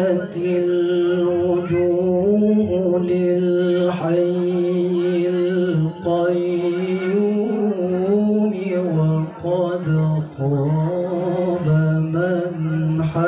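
A male qari reciting the Qur'an in the melodic chanted tilawah style: one unaccompanied voice holding long, ornamented notes that rise and fall slowly in pitch, with short breaks about six and ten seconds in.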